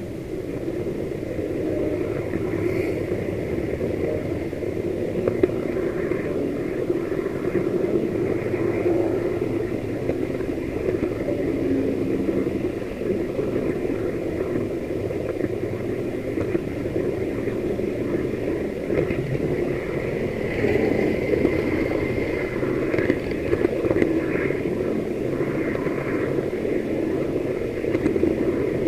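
H0 model locomotive running along the track, heard from on board: a steady hum and rattle of its motor, gears and wheels on the rails, with scattered clicks.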